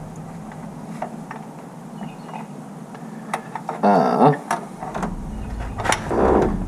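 Light metal clicks and taps as a fuel pump is worked into place against an engine. A short strained vocal sound, like a grunt of effort, comes about four seconds in and again near the end.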